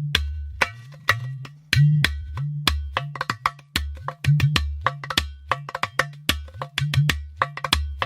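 Background music: sharp, dry click-like percussion over a low bass line that steps between notes in a repeating pattern.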